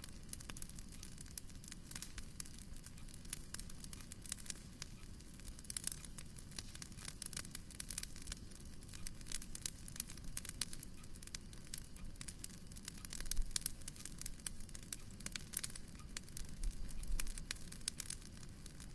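Wood fire crackling in a fireplace: a dense run of small sharp crackles over a low, steady rumble. There are a couple of louder low thuds, one about two-thirds of the way in and one near the end.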